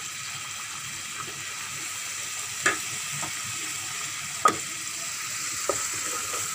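Chicken curry simmering and sizzling in a steel pot, with a steady hiss. Two sharp taps sound partway through, the second the louder.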